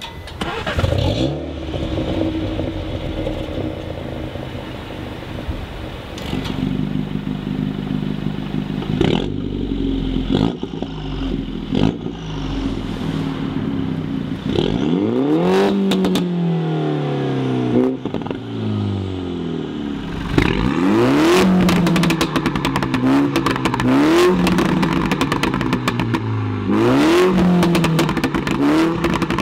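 Mini Cooper S JCW's turbocharged four-cylinder engine starts up and idles steadily, heard at the exhaust. From about halfway in it is revved in repeated short blips, the pitch rising and falling, with the exhaust crackling and popping as the revs drop.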